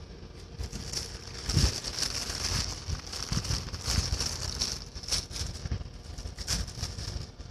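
Irregular rustling and crackling close to the microphone, with a few soft thumps, the loudest about a second and a half in.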